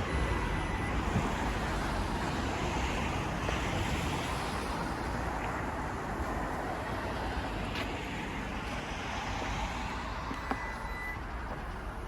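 Steady hiss of road traffic, fading slightly towards the end, with a short high beep right at the start and another about ten and a half seconds in.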